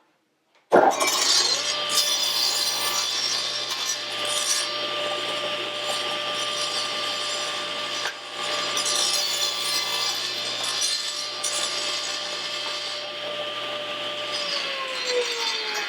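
Table saw cutting scrap plywood: it starts suddenly about a second in and runs with a steady motor whine under the noise of the blade in the wood. Near the end the saw is switched off and its whine falls in pitch as the blade spins down.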